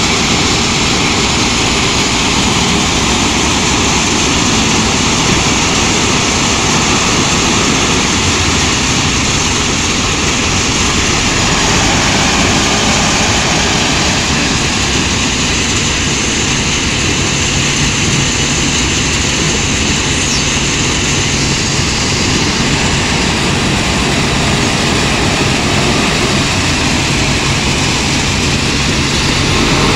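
Wheel loader's diesel engine running as it works, over a loud, steady mechanical noise from the crushing yard's machinery. A low, steady engine hum becomes clearer from about halfway.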